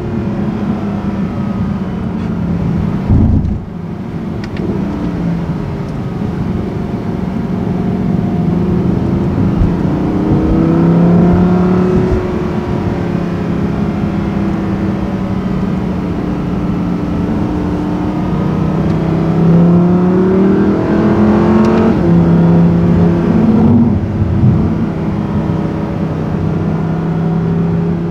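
Audi R8's 5.2-litre V10 engine heard from inside the cabin while driving at moderate revs, which rise and fall several times, with a sudden drop a little past twenty seconds. There is a short loud thump about three seconds in.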